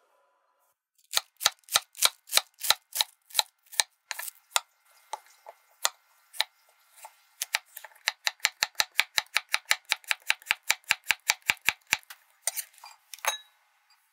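Chef's knife slicing cucumber on a wooden cutting board, each stroke a sharp knock of the blade through the vegetable onto the board. A steady run of about three cuts a second, a few scattered cuts, then a faster run of about five a second, with a few last cuts near the end.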